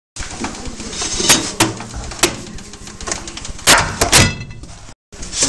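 An oven door and a metal baking tray being handled: a string of sharp knocks and clatters, the loudest two close together near the end.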